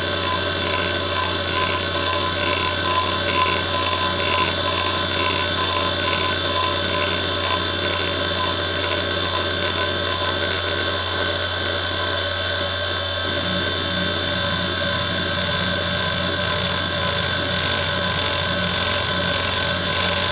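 Fujitsu MPB3021AT hard drive seeking continuously under the hdmotion head-movement test: a rapid, repeating chatter of the head actuator over the steady hum of the spinning platters. The seek pattern changes about two-thirds of the way through, and the chatter takes on a lower, pulsing sound.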